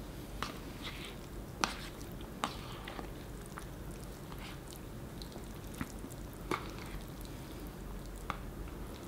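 Fork clicking and scraping against a food box while picking up food: about seven sharp, irregularly spaced clicks.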